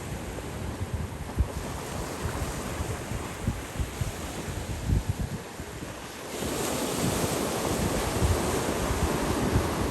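Waves washing on the shore, with wind buffeting the microphone; the surf hiss swells about six seconds in.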